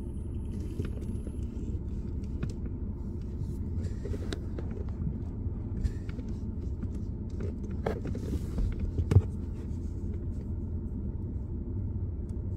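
BMW's engine and the car's running noise heard inside the cabin: a steady low rumble, with scattered light clicks and one sharper thump about nine seconds in.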